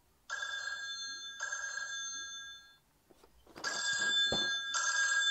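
Mobile phone ringing: two double rings of steady high tones, each ring about a second long, with a short pause between the pairs.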